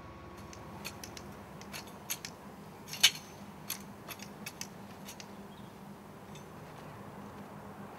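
Garden tools working stony soil: a string of sharp clicks and knocks, irregular and about a dozen over a few seconds, with one louder strike about three seconds in.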